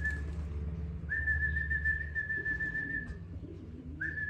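Long, steady, single-note whistles calling racing homing pigeons down to the loft. One ends just after the start, a second is held for about two seconds, and a short one with a quick upward flick comes near the end.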